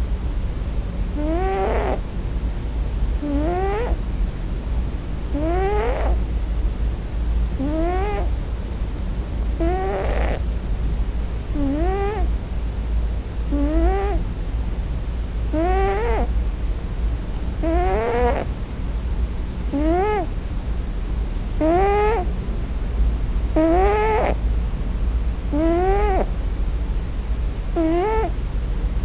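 Young Scottish Fold cat crying in its sleep, not snoring: short cries, each rising then dipping in pitch, repeating about once every two seconds over a steady low rumble. It is crying for its mother.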